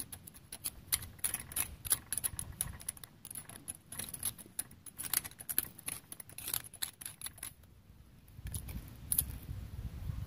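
Thin metal pick scratching and picking rust out of the threads on the end of a rusty strut shaft: a quick, uneven run of short scrapes and clicks to clean the threads before the nut is removed. The scraping stops about three-quarters of the way through.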